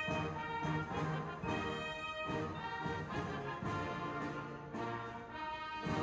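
Military brass band playing live: held brass chords over a steady drum beat.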